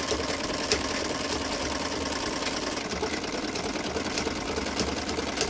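Domestic sewing machine running steadily as it stitches a seam along a fabric strip, a continuous fast, even clatter of the needle mechanism with an occasional sharper click.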